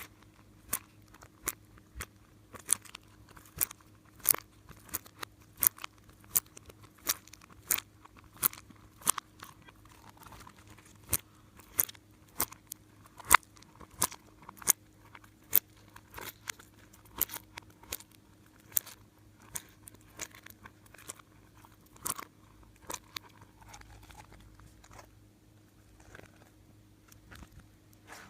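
Slime being squeezed and pressed by hand, giving a string of sharp crackling pops and crunches, roughly two a second, that thin out near the end.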